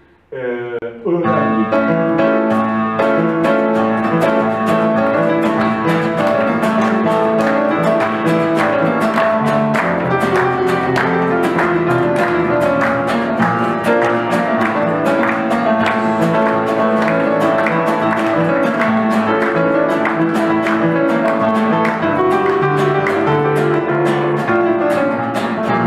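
An upright piano and an acoustic guitar playing an instrumental piece together, beginning about a second in.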